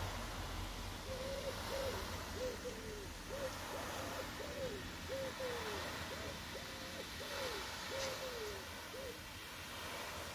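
A bird hooting: a run of about a dozen low, hollow coo-like notes, each rising and falling, over several seconds, heard over a steady hiss of water and outdoor noise.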